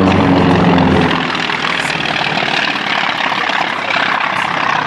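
A piston-engined World War II fighter flying past, its engine and propeller making a broad, loud roar. A low steady hum underneath ends about a second in.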